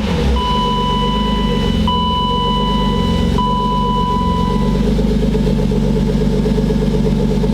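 BMW E36 325is's straight-six engine idling steadily with its throttle position sensor unplugged, and it runs much better this way, which points the owner to a bad throttle position sensor as the cause of its rough idle. A steady high electronic warning tone from the car sounds in long stretches until about five seconds in.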